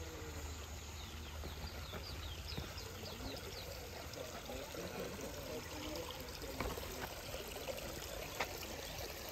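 Running water trickling and splashing steadily.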